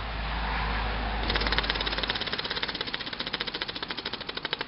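Small home-built single-cylinder uniflow engine with ball valves, running at one bar: a hiss at first, then from about a second in a fast, even chuffing of exhaust puffs as it runs.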